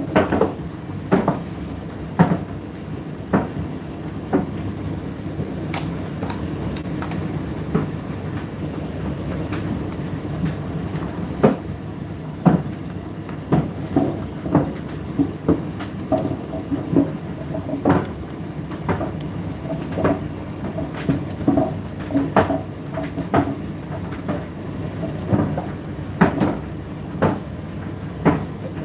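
Indesit IDC8T3 8 kg condenser tumble dryer running mid-cycle: a steady motor and fan hum with irregular knocks and clicks about once a second as the load tumbles in the drum.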